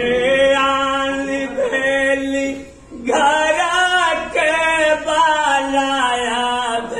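A man singing a bidai song, the mournful song of a bride's farewell from her father's home, in long drawn-out notes. He breaks off briefly a little before halfway, then carries on.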